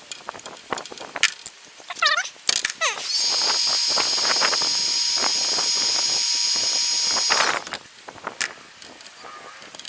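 Small handheld power tool running steadily for about four seconds, cutting into a fishing rod's reel seat, starting about three seconds in and stopping suddenly. Before it come clicks and short squeaks of tools being handled.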